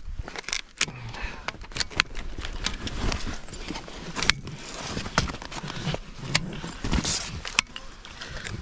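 Scattered metallic clicks and clinks of shotgun shells and a shotgun's action being handled as a shell is taken out.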